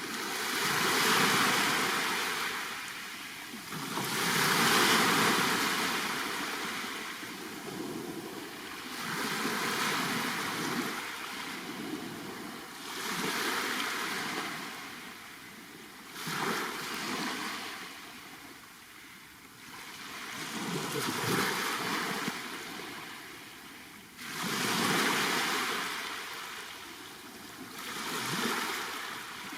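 Black Sea waves breaking on the shore one after another, each wash swelling and fading, about one every three to four seconds.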